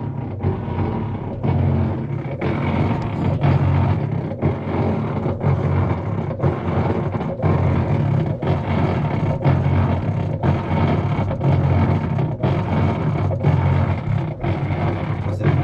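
Whirlpool top-load washing machine running with a loud, steady low hum that dips briefly about once a second. This is the noise the machine makes while its agitator is not turning.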